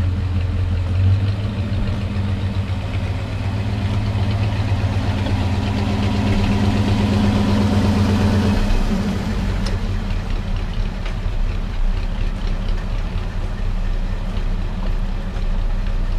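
Ford 8N tractor's four-cylinder engine running at low speed as the tractor drives past, growing louder to about eight seconds in, then falling away as it moves off.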